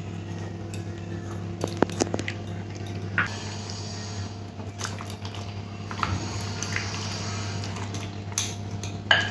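Metal spoon stirring cornflour into wet, egg-marinated chicken pieces in a glass bowl: soft squelching with scattered clicks of the spoon against the glass, over a steady low hum.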